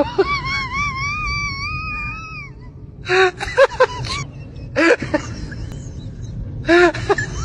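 Whining, wailing animal cries: one long wavering cry lasting about two and a half seconds, then short cries in small clusters about every two seconds.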